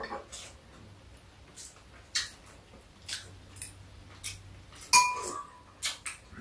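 Metal spoons clinking and scraping against bowls at a meal: scattered short taps, with one louder clink about five seconds in that rings briefly.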